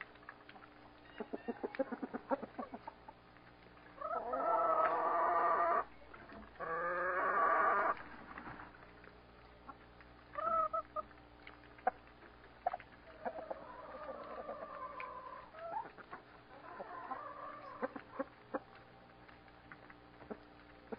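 Backyard chickens clucking, with two loud, drawn-out calls of about two seconds each a few seconds in, then scattered shorter calls and clucks.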